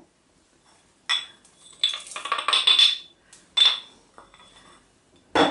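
Ceramic mortar and pestle clinking and clattering as crushed black peppercorns are tipped out of the mortar into a stainless steel pot. There are sharp ringing clinks about a second in, a run of clattering taps, another clink, and a louder knock near the end.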